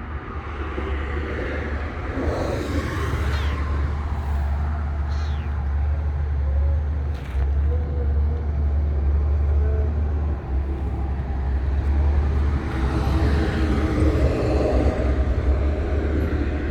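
A rescued stray cat meowing a few times, over a steady low rumble.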